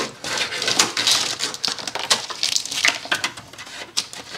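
Electrical wires being pulled up through the engine bay: rustling and scraping against plastic, with many irregular clicks and knocks.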